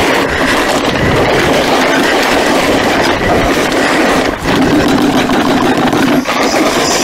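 Damp fishing clay being rubbed through a sieve by hand: a steady, loud rasping scrape. The sticky clay clings to the mesh.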